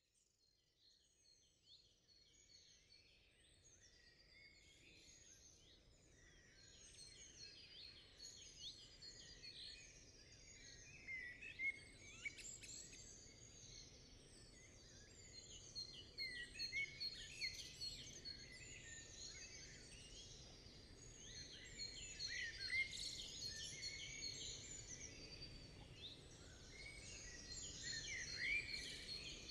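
A chorus of many small birds chirping and singing over a faint low background noise, fading in from silence and growing louder.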